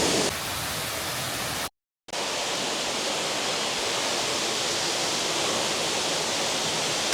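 Waterfall, a steady rushing of falling water that breaks off into total silence for a moment just under two seconds in, then resumes.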